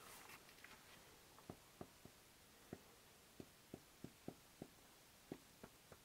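Water dripping from icicles: about a dozen single drops falling at irregular intervals, over a faint hiss.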